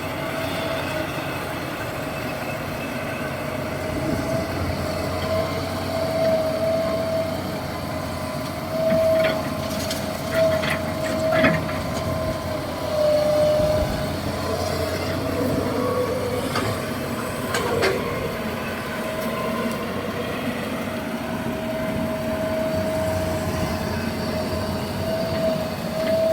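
Heavy diesel truck running, its engine rumbling under a steady high whine, with a few clunks and rattles partway through.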